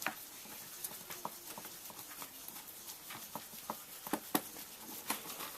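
Irregular light clicks and taps of small hand tools and plastic and metal RC buggy suspension parts being handled and worked on, a dozen or so scattered knocks.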